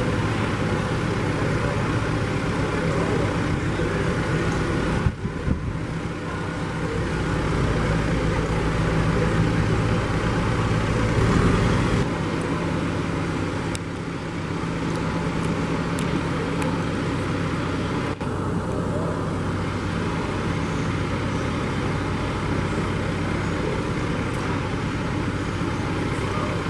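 John Deere utility tractor's diesel engine running steadily at low speed while it tows a utility trailer. The engine gets louder for a few seconds in the middle and eases back about twelve seconds in, with a single bump about five seconds in.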